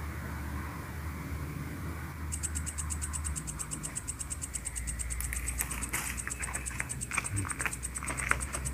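Night insects trilling in a fast, even, high-pitched pulsing buzz that starts about two seconds in, over a low steady hum. A few light clicks and rustles come near the end.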